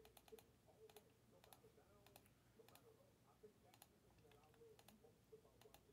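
Faint, irregular clicking of a computer mouse and keyboard, a few clicks a second, under a near-silent room.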